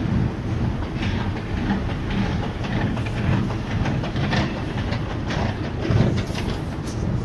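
Metro escalator running: a steady low rumble from its machinery, with irregular clacks and rattles from the moving steps.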